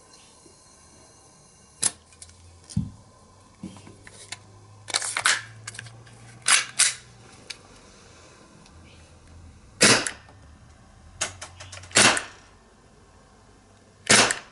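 Gas-powered airsoft gun firing single shots: a series of sharp pops at irregular intervals, some in quick pairs.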